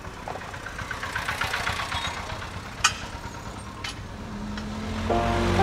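Low rumble of a moving e-rickshaw, with two sharp clicks about a second apart near the middle. Background music comes in near the end.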